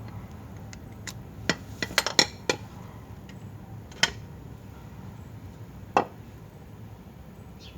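Sharp metallic clinks of hand tools and metal parts being handled and knocked together during engine work: about six separate strikes, a quick cluster around two seconds in and single ones near four and six seconds.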